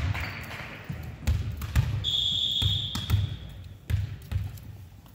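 A referee's whistle sounds once, a steady shrill tone held for about a second, in a gym. Around it, a volleyball bounces on the hardwood floor several times with dull thuds, in an uneven rhythm.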